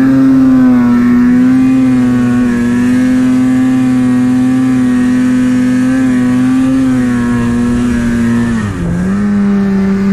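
Snowmobile engine running at steady high revs while the sled ploughs through deep powder; near the end the revs drop sharply for a moment, then pick back up and hold a little lower.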